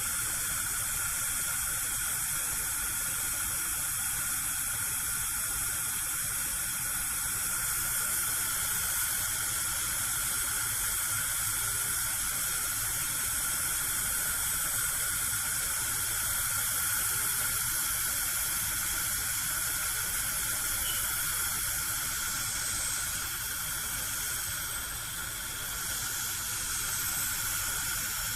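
Gas cooker burner alight, giving a steady hiss of gas and flame that dips slightly about 24 seconds in.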